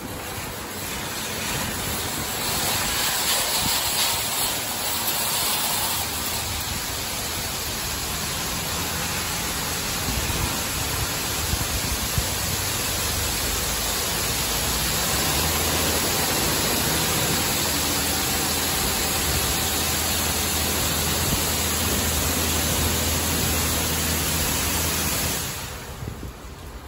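LaserWash M5 touchless car wash spraying the car with high-pressure water jets from the overhead gantry's arm: a loud, steady hiss of water. A low machine hum joins about halfway through, and the spray drops away shortly before the end.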